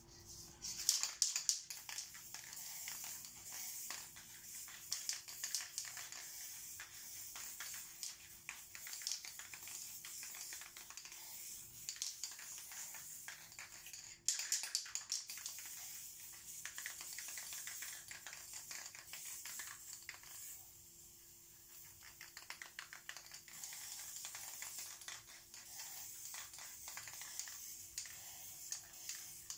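Aerosol spray paint cans hissing in spurts, mixed with rapid clicking and rattling. The loudest moments come about a second in and again about fourteen seconds in.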